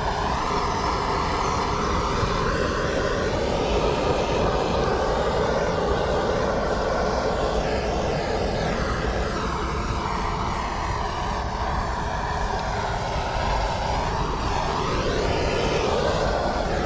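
Blowtorch flame burning steadily as it scorches a wooden-framed metal queen excluder, heating it enough to melt the propolis and burn off pathogens.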